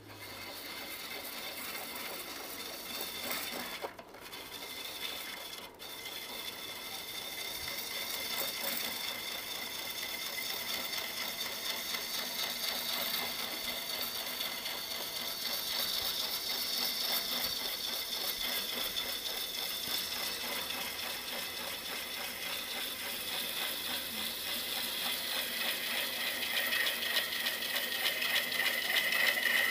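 A turning gouge cuts the outside of a large wooden vessel spinning on a lathe, giving a continuous rasping hiss. It drops out briefly about four and six seconds in, then grows louder toward the end.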